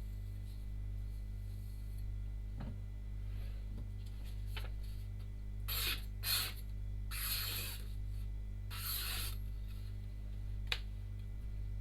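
Steel cleaver blade stroked across a wet 1000-grit whetstone: four short scraping strokes in the middle, then a sharp click near the end, over a steady low hum.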